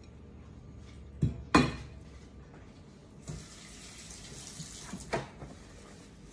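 A ceramic plate clatters twice as it is set down on a hard surface; then a kitchen tap runs with a steady hiss for about two seconds, ending with a knock.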